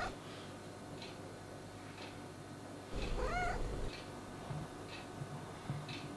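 A cat meows once, about three seconds in, a single call that rises and then falls in pitch. Faint ticks recur about once a second.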